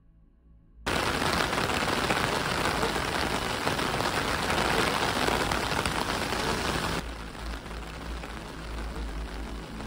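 Heavy rain pouring down and beating on surfaces, starting suddenly about a second in. About seven seconds in it drops abruptly to quieter rain with a low rumble underneath.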